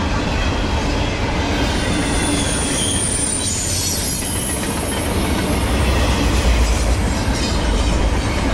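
Empty intermodal well cars of a long freight train rolling past, wheels rumbling on the rails. A thin high wheel squeal rises over the rumble for a few seconds in the middle.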